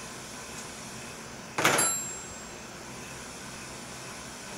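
A single sharp metal-on-metal clink about one and a half seconds in, with a brief high ring, over steady room noise.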